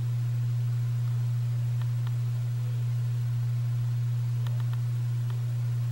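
A steady low-pitched hum, one pure tone held without change, with a few faint clicks over it.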